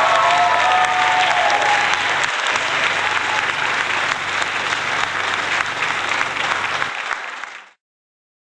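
Audience applause with some cheering in the first two seconds, then fading out near the end.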